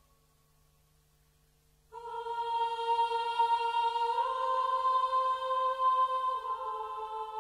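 Music: after about two seconds of near silence, a long, held, chant-like sung note comes in suddenly. It steps up in pitch and later steps back down.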